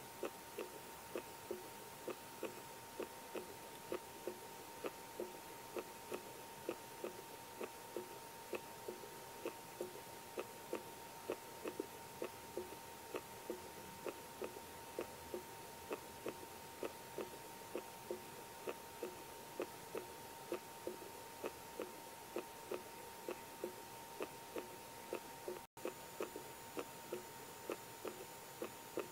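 Steady, even ticking, about two ticks a second, over a faint steady whine. The sound drops out for an instant about 26 seconds in.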